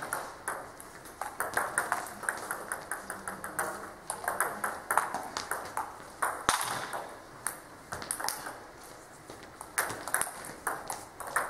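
Table tennis ball clicking off rackets and bouncing on the table in quick series of sharp ticks during rallies, with short pauses between points.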